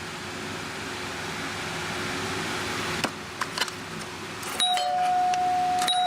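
Friedland doorbell chime driven through an amplifier as a makeshift speaker: hiss and low hum swell as the volume comes up, a few clicks sound about three seconds in, then the chime bar rings out in one sustained clear tone from about four and a half seconds on.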